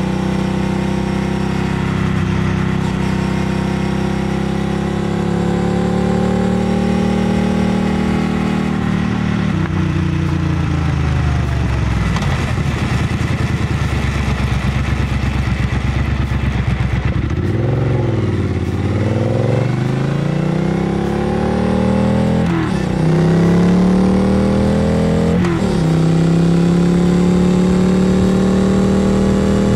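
Triumph Bobber Black's 1200 cc parallel-twin engine and exhaust under way. It runs steadily, then rolls off with the revs falling about ten seconds in, then pulls hard with rising revs and two or three quick upshifts near the end. There is wind rush over the rider's microphone throughout.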